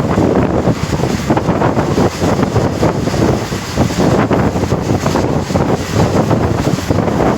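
Loud wind buffeting the microphone over the steady rumble of a moving train, heard from on board while it runs at speed.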